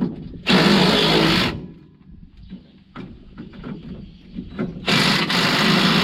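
Impact wrench running in two bursts, one about a second long and one about two seconds long, with a little clatter between them.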